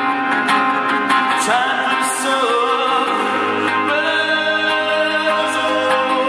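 Live song: a male voice singing a held, gliding melody over a strummed ukulele.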